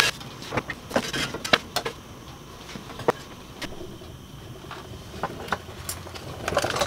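Scattered, irregular light clicks and metallic taps of hand tools being handled under a vehicle.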